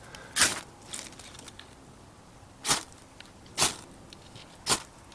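Four short, sharp crackling snaps about a second apart, from hands working sticks and tinder into a tiny twig stove to get it lit.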